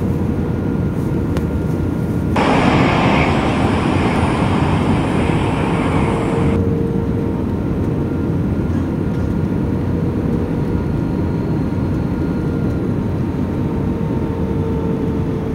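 Passenger airliner's engines and airflow heard from inside the cabin: a steady drone with a faint steady tone. A louder rush of hiss starts abruptly about two seconds in and stops just as suddenly some four seconds later.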